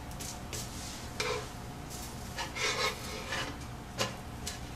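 Black spatula scraping and tapping on the nonstick plate of an electric griddle as masa gorditas are turned: a handful of short, irregular scrapes, with a sharper tap about four seconds in.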